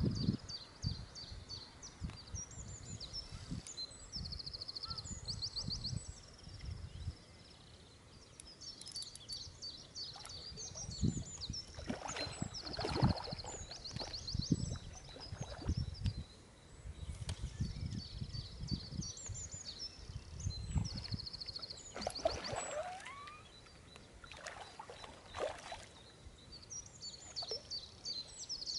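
Spinning fishing reel being wound in spells as line is reeled in, with handling knocks and scrapes from the rod. Songbirds sing repeated trills throughout.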